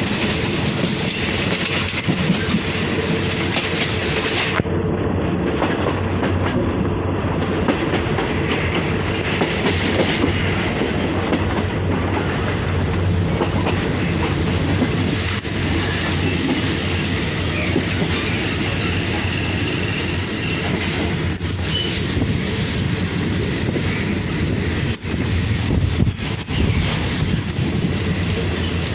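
Passenger train running along the track, a steady rumble with a low hum and the clatter of wheels over the rails, heard from inside a carriage.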